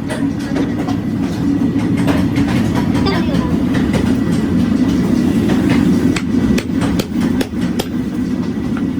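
Workshop machinery running with a steady low drone, with irregular sharp metal clanks and knocks on top, several close together about six to seven and a half seconds in.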